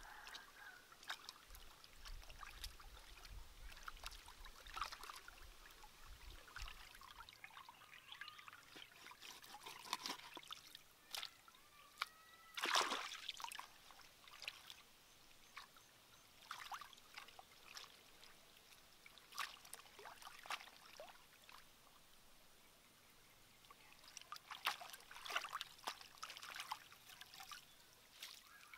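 Faint trickle of a shallow rocky stream, with scattered small splashes of hands working in the water to rinse fish and greens; one louder splash about halfway through.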